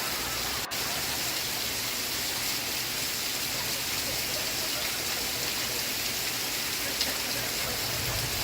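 Steady rain: a dense, even hiss of drops falling on a surface, broken by a brief dropout less than a second in.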